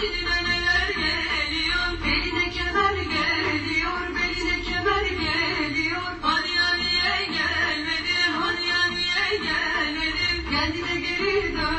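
Background music playing steadily under the slideshow.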